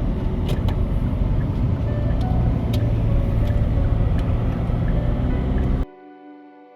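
Loud outdoor street noise, a low rumble like passing traffic with a few sharp clicks, that cuts off suddenly near the end and gives way to quiet electric piano music.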